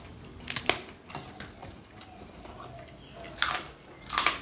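Crisp fried food crunching as it is broken by hand and bitten: three short crackly crunches, one about half a second in and two near the end.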